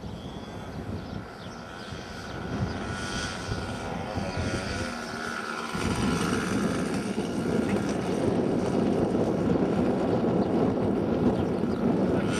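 Radio-controlled model plane's engine and propeller running in flight, a steady high drone, under heavy wind buffeting on the microphone. The sound swells and gets louder about halfway through.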